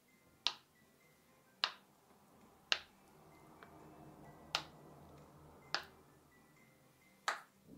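Silicone pop-it fidget toy: six sharp pops, about one a second, as its bubbles are pushed back through to the other side one at a time.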